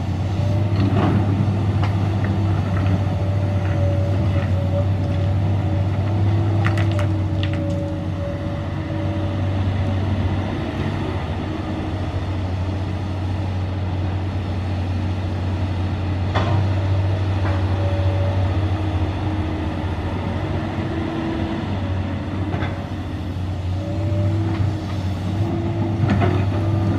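Komatsu PC200 hydraulic excavator's diesel engine running steadily while it digs, with a steady whine over the low engine hum. A few short knocks and clatters come from rock in the bucket.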